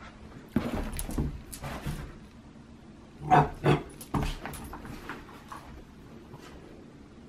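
Young dog giving short barks and yips while playing with a ball, with two loud sharp barks about three and a half seconds in and softer ones around them.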